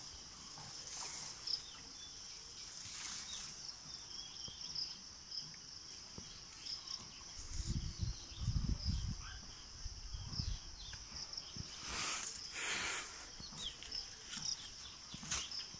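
Steady high-pitched drone of insects with scattered chirps. Brief rustles of leaves and branches come about a second in, around three seconds and near twelve seconds, with a low rumble of handling or wind around the middle.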